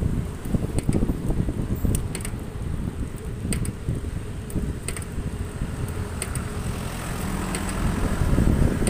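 Wind buffeting the microphone while riding along a road: a steady low rumble, with a few light clicks scattered through it.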